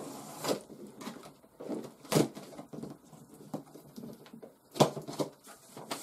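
Cardboard box being handled and opened: scattered knocks, scrapes and rustles, with two sharper knocks about two seconds in and just before five seconds.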